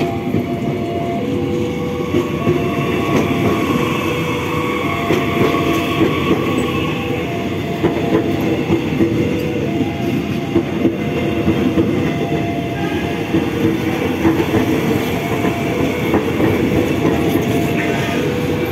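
KRL KfW i9000 electric multiple-unit commuter train passing close by, a steady rumble of its cars with wheels clacking over rail joints in a quick run of clicks. A steady electronic tone sounds on and off over it.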